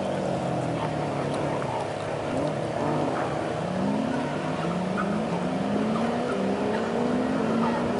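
Car engines: one idling steadily while another accelerates hard, its revs climbing in repeated steps as it shifts up through the gears.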